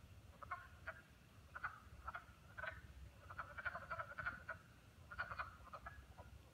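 A chorus of frogs calling from a pond: many short croaking calls, overlapping and irregular, heard at a distance over a low background rumble.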